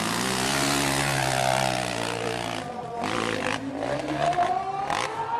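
Motocross bike engine running, its note sinking slowly over the first two seconds, followed by several short, sharp bursts of noise.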